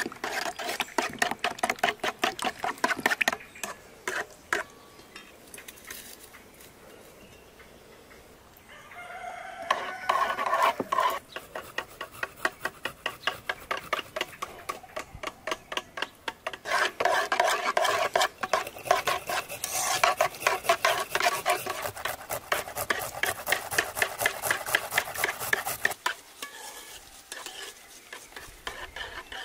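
Rapid rhythmic stirring or whisking of food in a bowl with a utensil, about four to five strokes a second. It breaks off for a few seconds about four seconds in, then starts up again.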